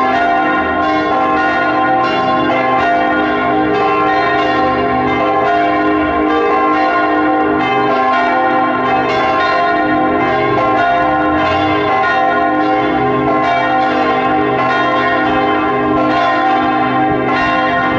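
Several church bells ringing together in a continuous peal. Overlapping strikes come every second or less over a sustained wash of ringing tones, at an even level throughout.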